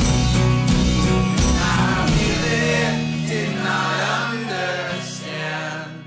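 Background music: a sung song over a steady beat. About two seconds in the drums and bass drop out, leaving held notes and singing that fade away near the end.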